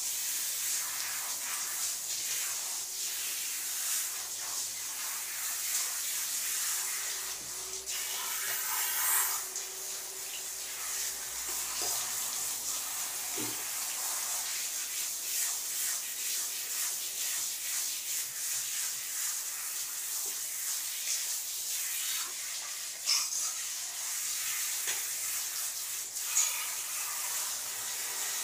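Handheld shower head spraying water over a dog in a shower stall: a steady hiss, with a few brief knocks.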